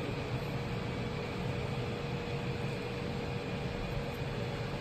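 Steady background machine hum and hiss with a thin, constant whine.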